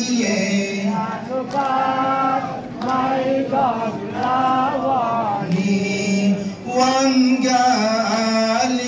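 Male voice chanting a noha, a Shia Muharram mourning lament, with no instruments, in long held phrases that bend in pitch.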